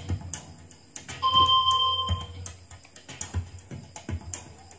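Synthesized electronic game music and sound effects from a Platinum Major HD10 karaoke player's built-in card game. A held beep-like tone sounds about a second in, among short notes and clicks.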